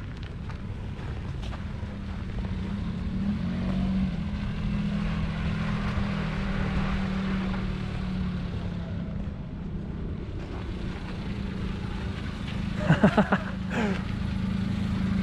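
Daihatsu Midget II's small three-cylinder engine running steadily, slowly getting louder. Near the end comes a brief cluster of short, loud, pitched sounds.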